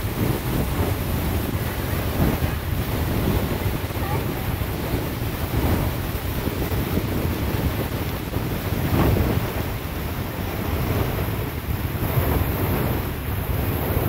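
Beehive Geyser erupting: a steady rushing of its water jet and falling spray, with wind buffeting the microphone.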